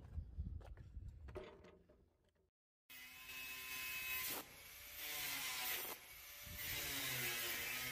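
Angle grinder cutting steel expanded-metal mesh: a high whine with a harsh grinding hiss that starts suddenly about three seconds in and surges in two or three passes with short dips between. Before it, only a low rumble of handling noise.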